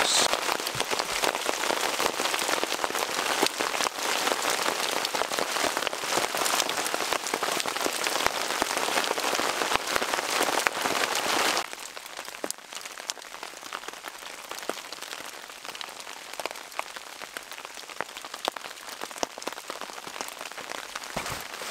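Heavy rain pouring onto a canvas tarp shelter, a dense steady hiss. About halfway through it cuts abruptly to lighter, quieter rain with scattered separate drips.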